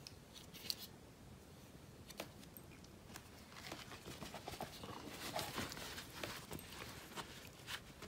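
Faint rustling and light clicks of a cloth rubbed along the toothed saw blade of a Swiss Army knife, wiping sap off with hand sanitizer. The rustling is mostly in the second half.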